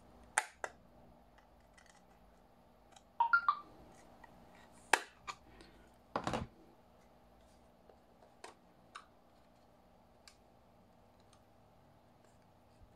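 Scattered clicks and taps of small hand tools on a portable hard drive's casing as it is pried open, with a brief squeak about three seconds in and a longer scraping tap a little after six seconds.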